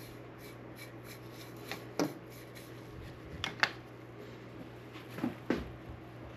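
A few short, light clicks and knocks of parts and tools being handled at the milling machine, over a steady low hum.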